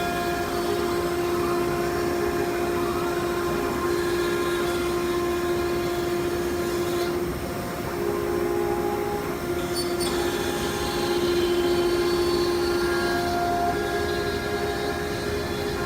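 CNC router spindle running steadily while cutting board, a continuous high whine with a hiss of cutting noise.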